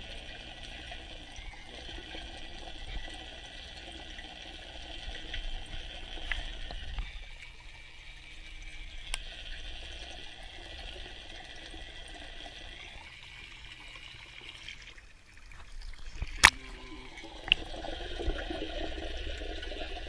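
Water noise heard through an underwater camera: a steady, muffled wash with a few sharp clicks, the loudest about sixteen seconds in.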